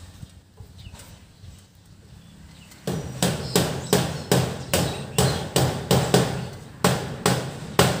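Hammer nailing: about a dozen steady strikes, two to three a second, beginning about three seconds in, each with a short low ring.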